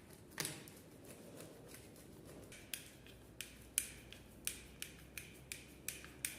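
Sharp, dry clicks from work on an electrical double socket. There is a single loud click about half a second in, then from about two and a half seconds a steady run of clicks about three a second, over faint background hiss.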